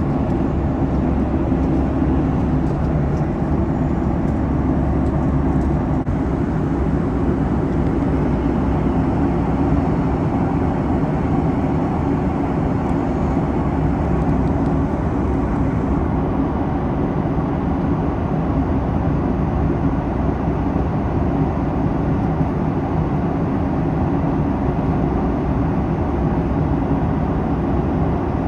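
Boeing 737 MAX passenger cabin in flight: a steady low rush of airflow and engine noise. The deepest rumble eases slightly about six seconds in.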